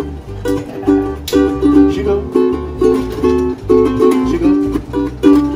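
Ukulele strummed in a steady rhythm, the chords changing throughout, with low bass notes underneath.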